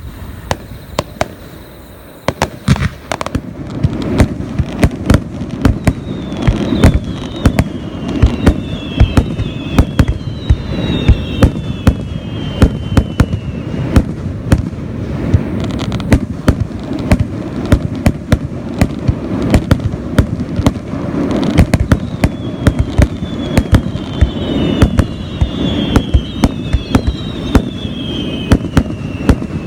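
Fireworks display: a rapid, continuous barrage of sharp bangs and crackling from bursting shells, growing denser a few seconds in. Two stretches of several falling whistles are heard over the bangs.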